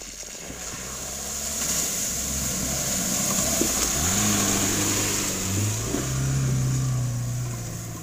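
A Lada Niva's engine revving under load as the car drives through a shallow river ford and up the bank, with water splashing. The engine pitch climbs in two steps, about four and six seconds in.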